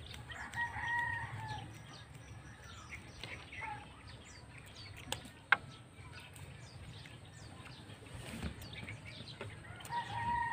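Small birds chirping, with a chicken clucking near the start and again near the end; a single sharp tap about five and a half seconds in.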